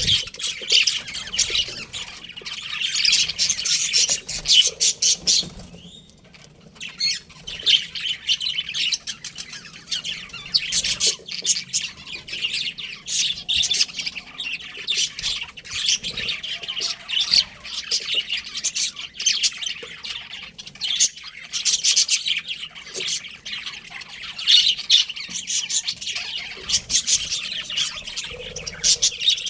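A flock of budgerigars chirping and chattering continuously in dense, overlapping high-pitched calls, with a brief lull about six seconds in.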